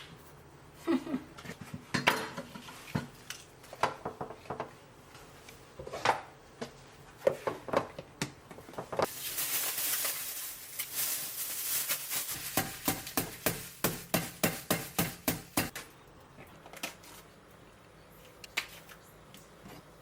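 Kitchen dishes and cutlery clinking and knocking, with a hissing stretch about nine seconds in, followed by a quick run of about five knocks a second for some three seconds.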